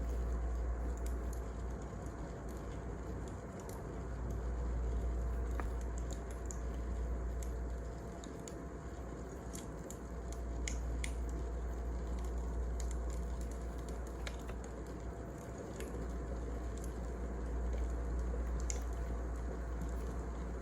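Wood fire crackling, with sharp pops scattered irregularly over a low rumble that swells and fades every few seconds.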